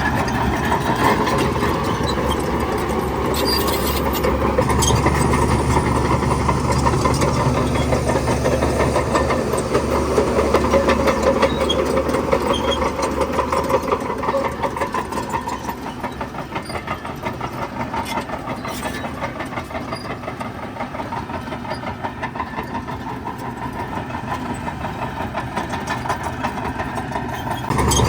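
Heavy diesel engine of earthmoving machinery running steadily under work, louder for the first half and easing off about halfway through.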